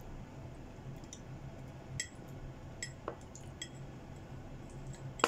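Wooden chopsticks clicking lightly against a ceramic bowl a few times, then one louder clink with a short ring at the very end, over a faint steady low hum.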